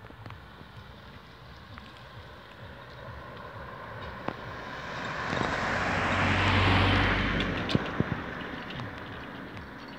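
A motor vehicle driving past: engine and tyre noise swell over several seconds, loudest about two-thirds of the way through, then fade away.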